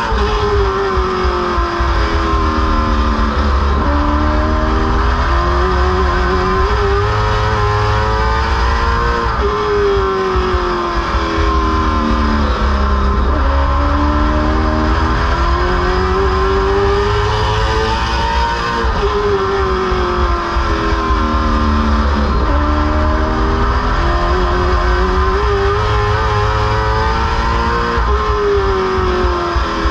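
Late model stock car's V8 racing engine heard from inside the cockpit, its pitch climbing under throttle for several seconds and then dropping as it lifts off, in a cycle repeating about every nine seconds as the car laps the oval.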